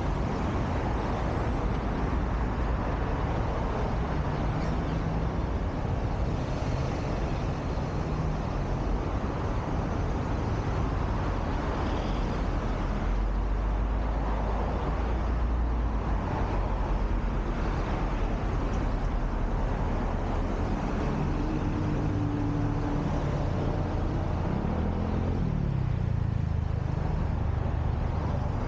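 Steady road traffic from a busy multi-lane road: cars, double-decker buses and trucks passing with engine hum and tyre noise. Near the end one vehicle's engine rises in pitch as it speeds up.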